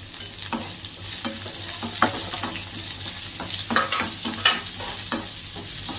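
Chopped onions, green chillies and ginger sizzling in hot oil in a pan, stirred with a spoon that scrapes and taps against the pan at irregular intervals.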